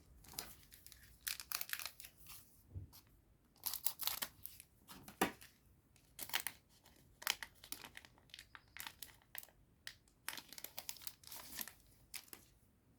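Foil wrapper of a Digimon Card Game booster pack being torn open and crinkled, in irregular crackling bursts that stop near the end.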